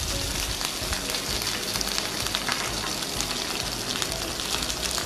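Fresh curry leaves and cumin seeds sizzling and crackling in hot ghee: a steady frying hiss with scattered small pops.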